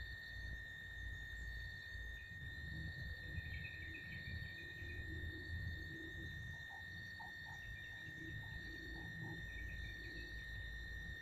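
A steady, unbroken high-pitched insect drone, over a low rumble, with a few faint short chirps scattered through it.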